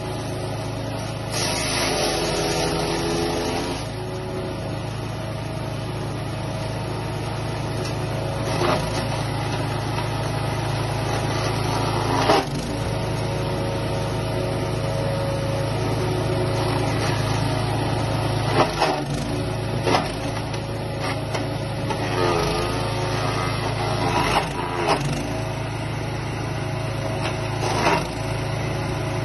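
Wood chipper's 14 HP, 459 cc petrol engine running steadily under load, its pitch wavering now and then. Sharp cracks come every few seconds as the blades chop fed-in plant waste.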